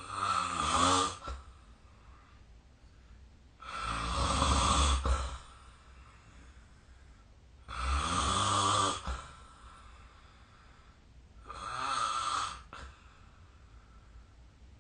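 A sleeping person snoring: four snores about four seconds apart, each lasting about a second, with quiet between them; the last is a little softer.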